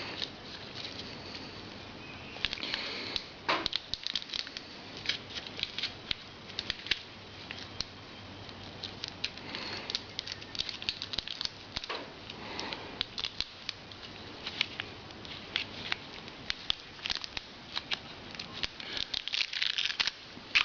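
Irregular small clicks, taps and brief rustles of hands handling small tools and parts, with no steady rhythm.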